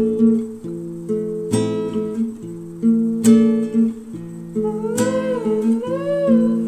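Background music: acoustic guitar strumming chords, a new chord about every one and a half to two seconds, with a sliding melody line coming in about five seconds in.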